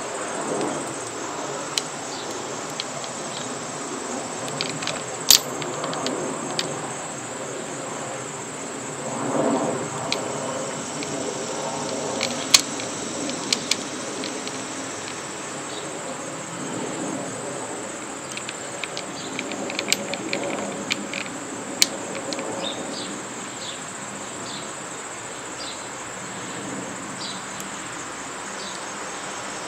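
Small metal clicks and taps of a hex key and screw as a bar-end cap is fitted onto a motorcycle handlebar grip, a few of them sharp. Underneath runs a steady, high chirring of crickets.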